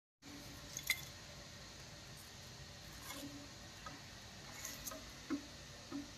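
Faint steady hiss with a few scattered light clicks and clinks, the sharpest about a second in.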